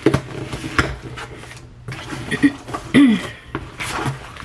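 Plastic packaging crinkling and rustling in the hands as a package is unwrapped, with two short wordless vocal sounds from her in the middle.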